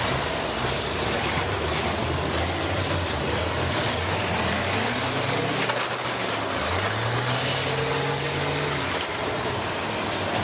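Several school bus engines running and revving under a steady wash of arena noise. About two-thirds of the way in, one engine revs up, holds the higher pitch for about two seconds, then drops back.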